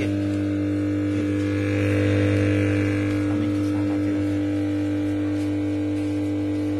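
Home theater subwoofer with TDA2030 amplifier ICs giving out a loud, steady hum. This is its humming fault, which the repairer puts down to a faulty TDA2030 amplifier IC.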